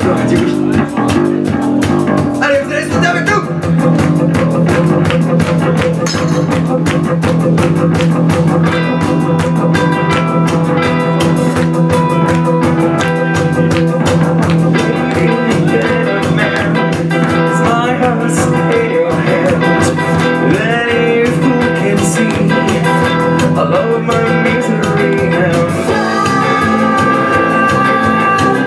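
Live rock band playing a song: electric guitars over drums, with singing.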